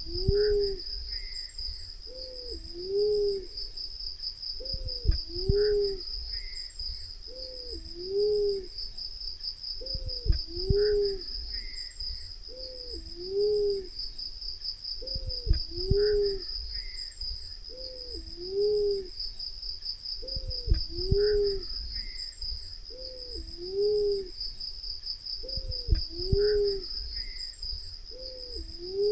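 Black-naped fruit dove calling: a low two-note hoot, the second note a little lower, repeated evenly about every two and a half seconds, over a steady high insect buzz.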